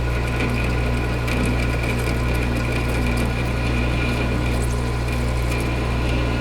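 Metal lathe running with a boring bar taking a heavy trial cut inside a bore, with no lubricant. There is a steady motor hum, a thin high whine and scattered faint ticks.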